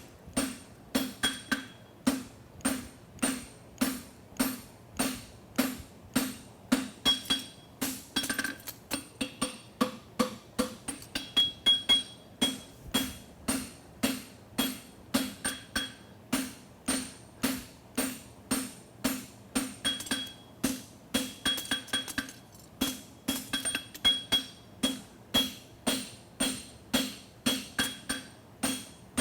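Steady hand-hammer blows on hot steel bar stock over an anvil, about two to three strikes a second, each with a short metallic ring from the anvil, as a horseshoe branch is drawn out.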